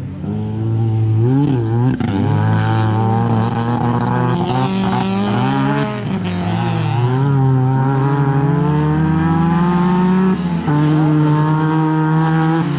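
Autocross cars of the 2000 cc class racing on a dirt track at full throttle. Their engine notes climb and drop repeatedly as they shift gear and lift, with a second engine sometimes heard over the first.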